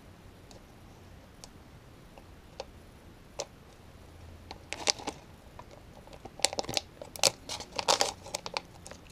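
Plastic bait package being cut and worked open with a knife. A few faint clicks come first, then bursts of crinkling and crackling from about halfway through, densest near the end.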